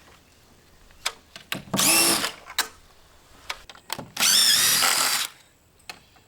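Cordless power drill running in two short bursts, the first about half a second and the second about a second long, its motor whine wavering in pitch. A few light clicks and knocks come between the bursts.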